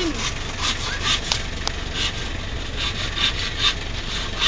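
Hand saw cutting through a bamboo pole, in quick back-and-forth strokes at about two to three a second.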